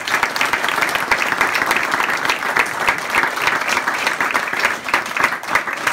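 Audience applause: many people clapping steadily together in a small room.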